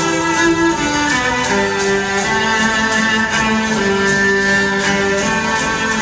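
Live band music led by a violin (fiddle) playing long held melody notes, with electric guitar and a steady drum beat underneath.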